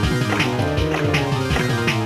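Electronic game music with a steady beat of about three a second, plausibly the tune played by a retro Sankyo Fever Big Chime pachinko machine.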